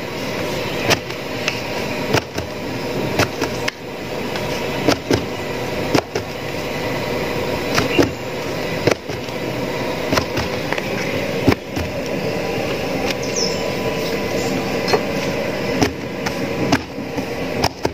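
Hands slapping a stack of hot, freshly cooked Kerala porottas, the beating that loosens the layers and keeps them soft. Sharp slaps come roughly once a second over a steady background hiss.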